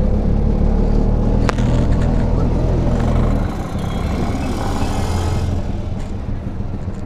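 Street traffic: a motor vehicle's engine runs close by with a low, steady sound that eases about three and a half seconds in, while the rush of a passing vehicle builds and fades over the next two seconds. A single sharp click comes about one and a half seconds in.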